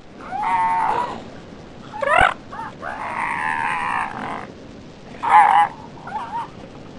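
A series of high-pitched animal squeals: about five separate calls with wavering pitch. There is one near the start, a short rising one about two seconds in, a longer wavering one through the middle, and two short ones near the end.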